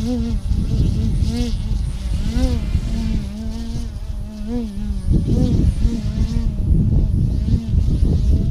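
Electric outrunner motor and propeller of a model aerobatic plane (T-MOTOR AM670 in a 67-inch Pilot RC Slick) buzzing in flight, its pitch swelling up and dropping back with repeated throttle bursts. From about five seconds in, wind rumble on the microphone rises over it.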